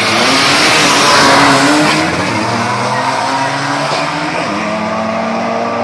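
Two drag-racing pickup trucks launching side by side at full throttle, with a loud rush of engine and tyre noise that peaks about a second and a half in. The engines then pull away down the strip and the sound settles to a steadier, lower drone.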